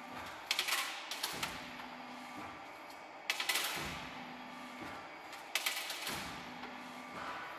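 Thin aluminium discs clinking against each other as they are slid and lifted off a stack: four short runs of quick metallic clicks, a couple of seconds apart, over a steady machine hum.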